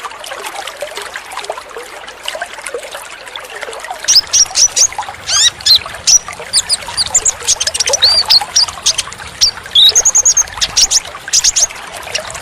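Sunbird (konin, 'kolibri ninja') song: from about four seconds in, a rapid run of loud, high, sharp chirps and short slurred whistles, over trickling water heard alone at the start.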